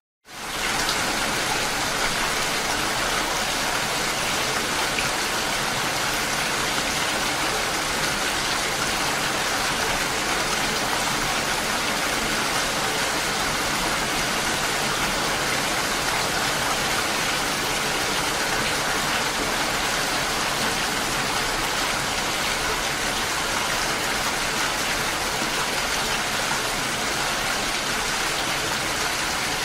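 Steady, dense rain falling continuously. The sound drops out briefly at the very start and returns within the first second.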